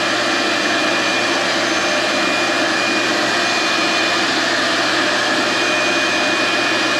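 Shop vac running steadily, drawing air out of a sandblast cabinet through its filter box to hold the cabinet under negative pressure: an even rush of air with a steady whine over it.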